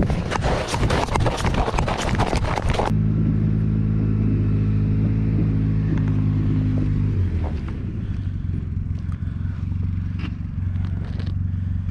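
Boots crunching on packed snow for about three seconds, then a steady low engine hum, like a motor idling nearby, that dips slightly in pitch partway through, with a few light clicks near the end.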